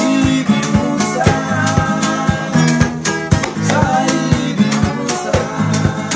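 Acoustic guitar played with a pick: a quick, rhythmic run of picked notes and chords.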